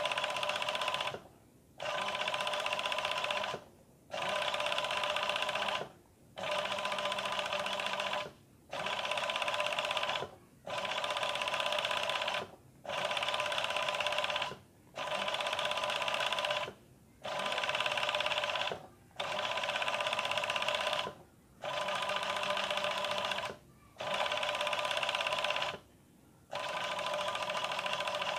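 Industrial sewing machine stitching a net-style picot edge. It runs in bursts of about two seconds with short stops between them, about a dozen times, and a steady whine sits under the rapid stitching.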